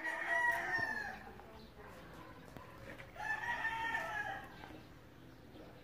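Rooster crowing twice, each crow lasting about a second, the second about three seconds after the first.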